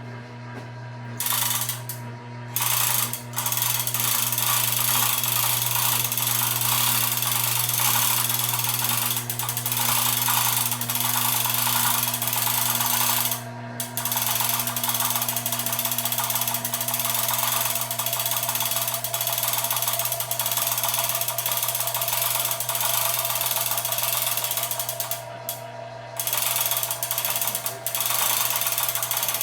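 Motorcycle lift running as it raises the bike: its motor hums steadily under a dense mechanical clatter that begins about a second in and drops out briefly three times.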